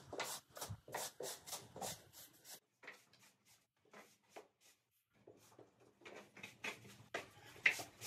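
Long-handled broom sweeping dust and litter across a concrete floor: a run of scratchy strokes, about three a second. They grow faint partway through, stop briefly about halfway, then come back stronger.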